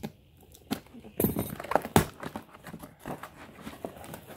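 Cardboard box being opened by hand: flaps and tabs scraped, bent and knocked, with a short rasping tear about a second in and a sharp knock at two seconds.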